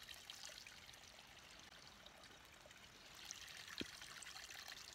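A little stream trickling faintly, with one soft knock just before four seconds in.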